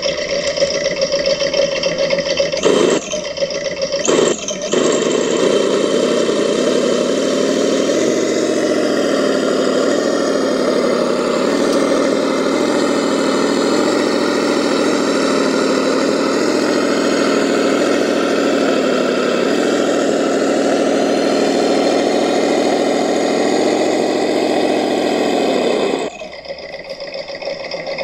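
Traxxas TRX-4 crawler on Traxx rubber tracks driving: the electric motor and gearbox whine steadily, the pitch shifting with speed, with brief breaks near the start. The sound drops off suddenly about two seconds before the end.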